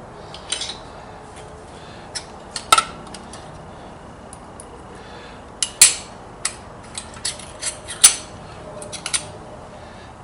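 Metal hand tools clinking and clacking in irregular sharp clicks, the loudest about three, six and eight seconds in, as wrenches are handled to find one that fits a 10-32 screw.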